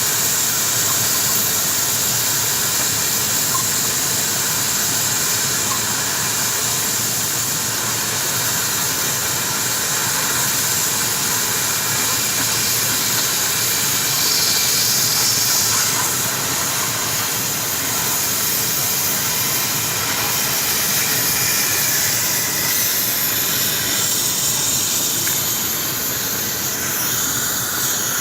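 Magnetic pipe-cutting machine at work on a high-pressure pipe: a loud, steady hiss that holds throughout with only slight shifts.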